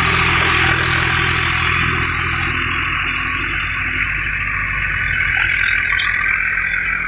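Tractor-driven thresher working: the tractor engine runs with a steady low drone while the threshing drum gives a continuous rushing whir as sheaves of crop are fed in.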